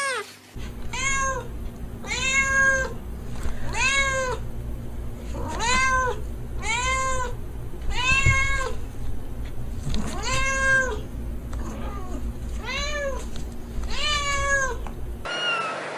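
A domestic cat meowing over and over: about ten loud meows, each rising then falling in pitch, roughly one a second. A steady low hum runs underneath and cuts off near the end.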